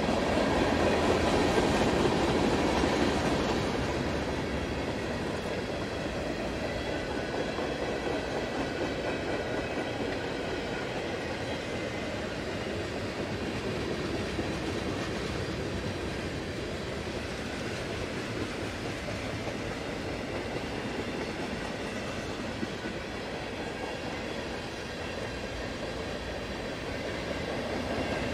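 Norfolk Southern freight train's cars rolling along the track: a steady rumble of steel wheels on rail, a little louder over the first few seconds.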